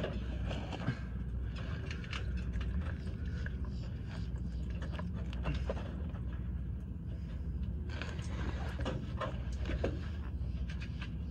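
Scattered small clicks and scrapes of hand work on fuel hoses and fittings at a truck's fuel selector valve, over a steady low rumble.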